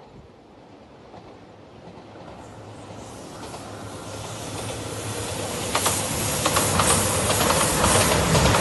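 JR Shikoku 2700 series diesel limited express train approaching and passing close by, growing steadily louder with a low engine drone. From about six seconds in, its wheels clack over the rail joints.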